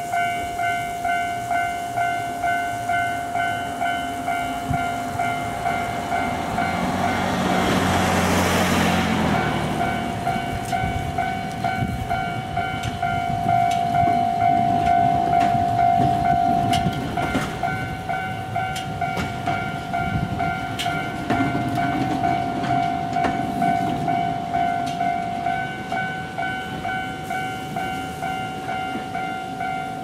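Japanese level-crossing warning bell ringing in steady repeated dings, about one and a half a second. A cable car rumbles and clacks over the crossing through the middle, and a brief rush of noise comes about eight seconds in.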